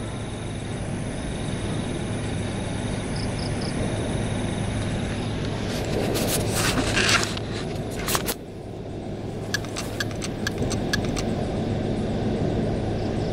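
Steady outdoor background noise with a low hum, slowly getting louder. A cluster of clicks and rustling comes about six to seven seconds in, then a knock and a few light ticks.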